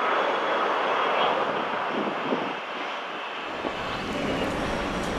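Jet aircraft noise: a steady rushing roar that slowly fades, joined by a lower rumble about three and a half seconds in.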